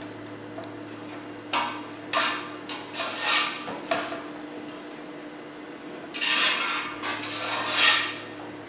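A spoon scraping and knocking against a cooking pot as cooked biryani rice is scooped in and spread over the layer, in several short strokes with the longest about six seconds in, over a low steady hum.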